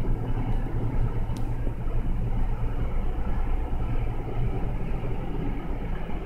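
Steady low mechanical hum and rumble of commercial kitchen machinery, unbroken throughout.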